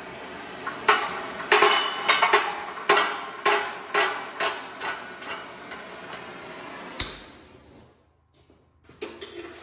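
Oxy-acetylene torch hissing steadily while about a dozen sharp, ringing metallic knocks come in an irregular run of roughly two a second, on a shaft stuck in a hydraulic press. About seven seconds in the torch goes out with a pop.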